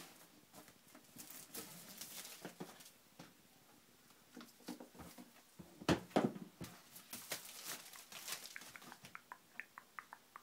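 Thin plastic shrink wrap crackling as it is peeled off an iPad 2 box, with the cardboard box being handled. Scattered crackles and taps, loudest about six seconds in, and a quick run of small clicks near the end.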